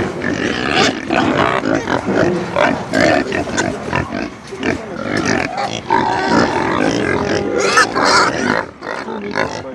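A group of pigs grunting continuously while they root in the soil of their pen.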